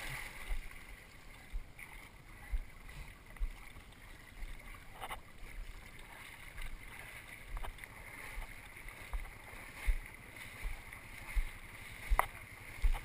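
Water lapping and sloshing around a kneeboard drifting slowly in shallow water, with irregular low thumps and a couple of sharp clicks.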